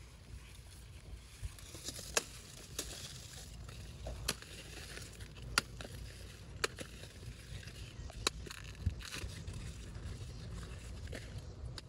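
Scattered sharp snaps and crackles, one every second or two, with rustling in between: plant stems and pods being snapped off by hand while harvesting in a garden.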